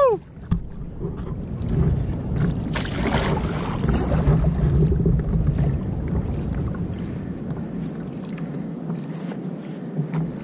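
Kayak being paddled over calm sea: paddle strokes and water washing along the hull, with wind rumbling on the microphone that eases off near the end.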